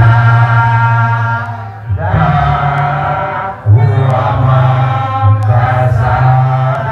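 Several voices singing a chant together into microphones, in long held notes, with new phrases starting about two seconds in and again near four seconds.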